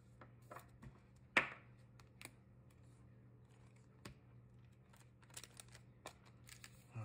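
Baseball card being handled into a soft plastic penny sleeve and a rigid plastic toploader: faint scattered rustles and light clicks of plastic, the loudest a sharp click about a second and a half in.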